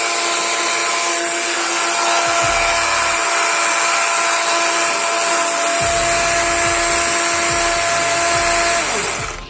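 DeWalt DCM565 18 V brushless cordless chainsaw running free at full speed with no cut: a steady electric whine over the hiss of the chain. It winds down near the end as the trigger is released.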